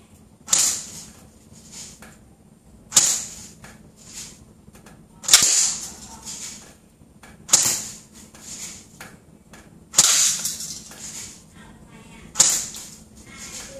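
Airsoft electric AK47 rifle (JG AK47 Beta) firing single semi-automatic shots, six sharp cracks about two and a half seconds apart, each with a short fading tail.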